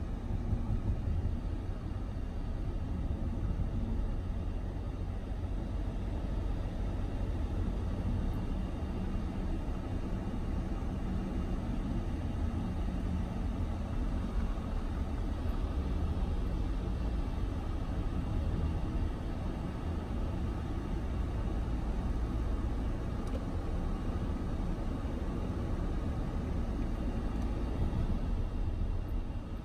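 Steady low rumble of a car driving along a road: engine and tyre noise, with no sudden changes.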